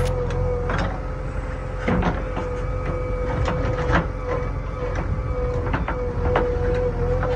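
JCB backhoe loader working: its diesel engine drones steadily with a steady high whine over it as the backhoe arm swings and digs, and sharp knocks and clanks come every second or so.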